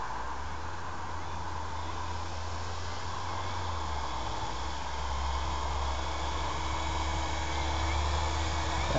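Skywing MXS RC aerobatic airplane's motor and propeller humming steadily in flight, with faint wavering pitch, getting a little louder in the second half as the plane comes closer. A low wind rumble sits under it.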